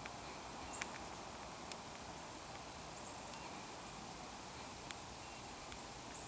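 Quiet outdoor background hiss in the woods, broken by four faint, sharp ticks spread through it.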